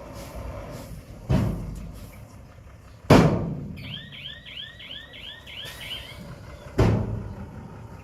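Heavy machinery at work on a stone fill: three sharp metallic bangs, the middle one the loudest, over a low rumble. A quick run of about eight high chirps comes between the second and third bangs.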